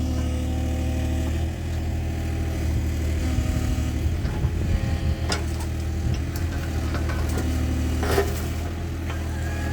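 Husqvarna 555 two-stroke chainsaw engine running at a steady idle, with a sharp click about eight seconds in.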